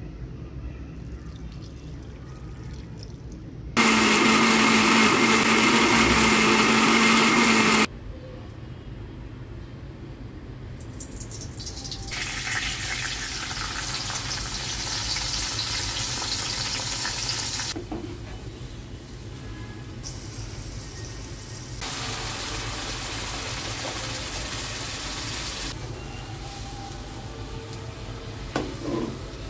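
Electric blender motor running steadily for about four seconds, grinding tomatoes and fried onions with water, starting and stopping abruptly. Later, two stretches of sizzling as the marinated chicken cooks in hot oil in the pan.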